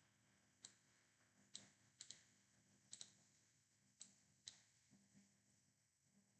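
Faint computer mouse clicks, about eight in all, some single and some in quick pairs like double-clicks.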